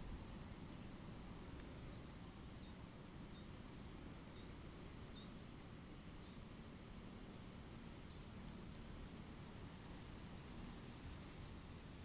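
Insects trilling steadily in one high, unbroken tone, over a low rumble.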